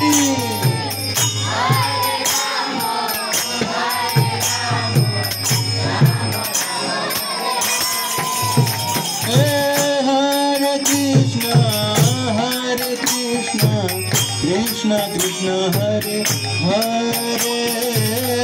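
Devotional kirtan: a man sings a melodic chant into a microphone over steady jingling hand percussion and regular low drum beats.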